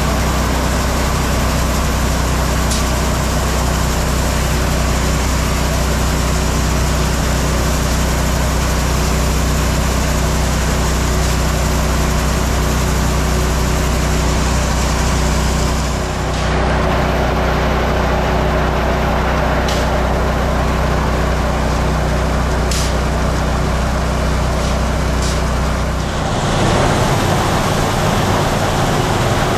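Grain bin unloading augers running, a loud steady machine drone inside the metal bin. The sound shifts about 16 s in and again near the end, with a few short clinks along the way.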